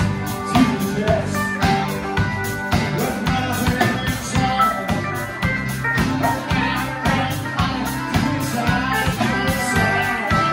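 Live band playing a country-rock song: acoustic and electric guitars, bass guitar, steel guitar and a drum kit keeping a steady beat.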